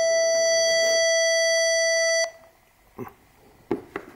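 Mugig MT-1S tuner's built-in speaker playing its electronic reference tone for the high E string, a steady buzzy beep that cuts off suddenly about two seconds in. A few faint clicks of its buttons follow.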